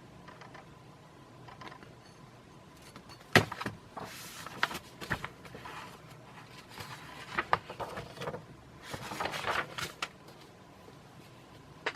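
Pages of a paper catalog being handled and turned: soft rustles and small clicks, with a sharper click about three seconds in.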